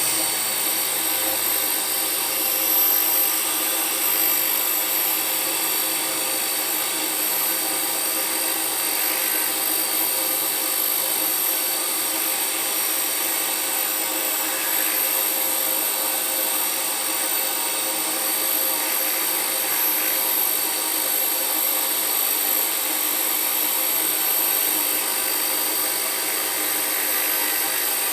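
A small motor-driven cleaning tool running steadily with a high-pitched whine.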